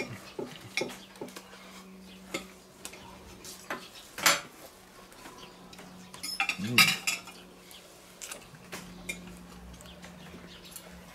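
Knives and forks clinking and scraping on plates as burgers are cut and eaten: scattered light clicks, with louder clatters about four and seven seconds in.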